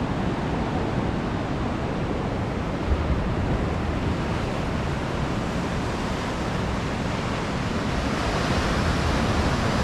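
Ocean surf breaking and washing against the rocks of a jetty: a steady, unbroken rush of water.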